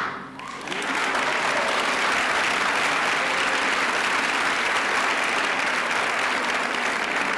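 Audience applauding steadily, the clapping swelling up within the first second as the music stops.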